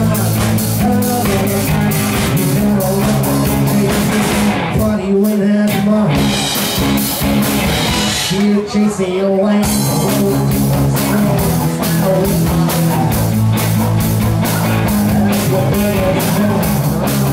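Live rock band playing: electric guitars, bass and drum kit. Twice, about five and about nine seconds in, the drums and bass drop out for a moment while the guitar notes carry on, then the full band comes back in.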